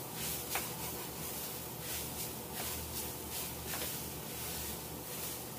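A spatula stirring and scraping shredded tender jackfruit and coconut paste around a stainless steel pan: repeated dry rustling scrapes, with a few light clicks of the spatula on the pan. A steady low hum runs underneath.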